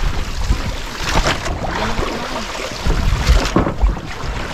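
Wind buffeting the microphone over open sea, with water washing and slapping against a small boat's hull in irregular gusts and surges.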